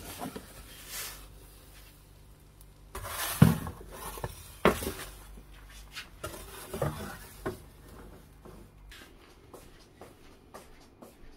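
Kitchen handling noises: scattered knocks, scrapes and clatter of dishes and utensils, loudest about three and a half seconds in, over a low steady hum that stops about nine seconds in.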